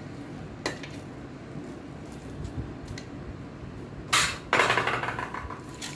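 Kitchen handling noises: a couple of light clicks, then about four seconds in a loud rustling scrape that lasts about a second and a half.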